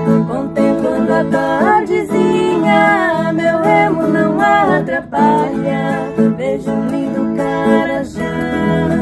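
A viola caipira and a nylon-string acoustic guitar strummed together in a steady sertanejo accompaniment, with two women's voices singing the melody over them, most clearly from about two seconds in.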